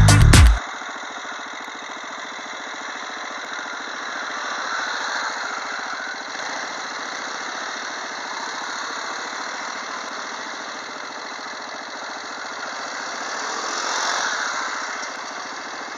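Quad bikes (ATVs) running as they ride past one after another on a dirt track, the engine noise swelling as a quad passes close about five seconds in and again near the end.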